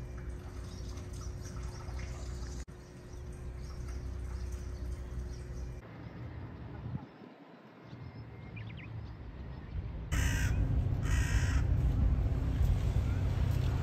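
A crow cawing: two long caws about a second apart, about ten seconds in, and another starting at the very end. Before that there is only steady outdoor background noise.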